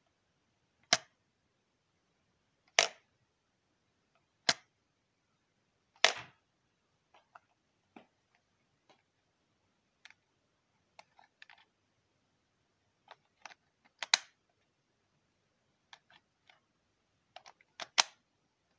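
Separate sharp clicks and knocks with no machine running: six loud ones spaced a few seconds apart, with fainter ticks between them.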